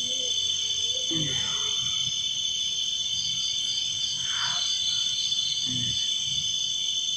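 Night chorus of crickets: a steady, unbroken high trilling at several pitches at once. A few faint, soft low sounds come and go beneath it.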